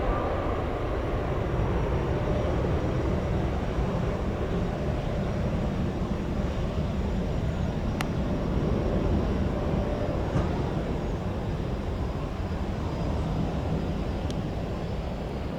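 Jet airliner engines running: a steady rumble with a faint high turbine whine that falls slightly near the end, and one sharp click about halfway through.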